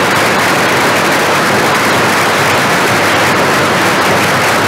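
Cricket crowd applauding steadily in an archival radio broadcast recording, after a wicket.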